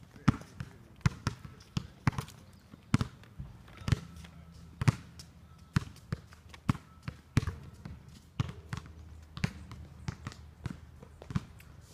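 Footsteps of a person walking on a dirt trail at a steady pace, about two to three crisp steps a second.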